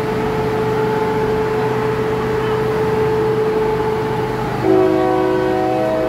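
State Railway of Thailand Sprinter diesel railcar standing at the platform with a steady engine hum, then sounding its horn, a chord of several notes held about a second and a half, starting about four and a half seconds in, as a departure signal.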